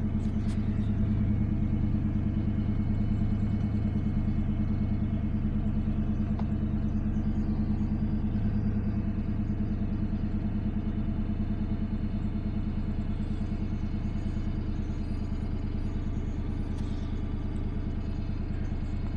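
2001 Ford Mustang GT's 4.6-litre V8 idling steadily just after a cold start, heard from inside the cabin. The idle eases slightly in level over time.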